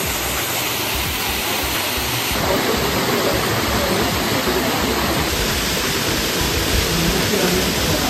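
Waterfall: a steady rush of falling water, getting slightly louder about two and a half seconds in.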